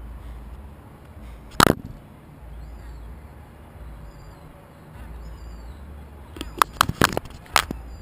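Sharp knocks on a GoPro camera housing as a gull handles it with its beak and feet: one loud knock about a second and a half in, then a quick cluster of four or five knocks near the end, over a faint low rumble.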